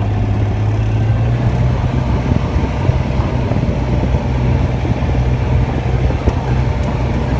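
Kubota RTV utility vehicle driving across a field: a steady low engine hum under a dense, uneven noise from the ride.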